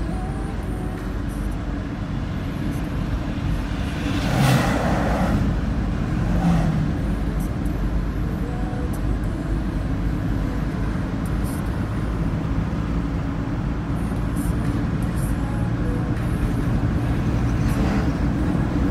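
Road noise of a car driving along a highway: a steady low rumble of engine and tyres, with a louder rushing swell about four and a half seconds in.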